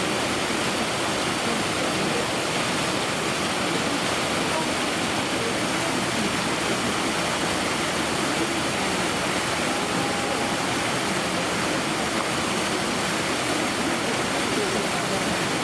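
Steady rushing of flowing water, even and unbroken throughout.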